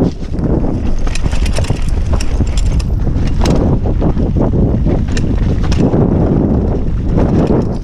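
Wind buffeting the camera microphone and knobby tyres rumbling over a dirt trail as a downhill mountain bike descends at speed. Sharp clacks and rattles from the bike come through over bumps.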